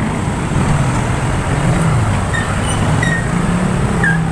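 Street traffic noise with a nearby vehicle engine running, its pitch rising and falling over a steady roadway hum.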